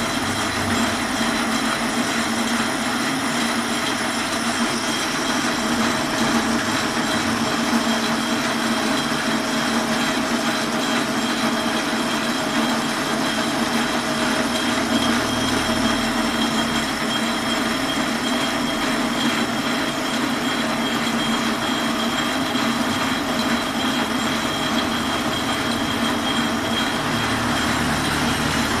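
Metal lathe turning a steel bar, the cutting tool stripping off its outer skin: a steady machine noise of the spindle and cut, with a high whine.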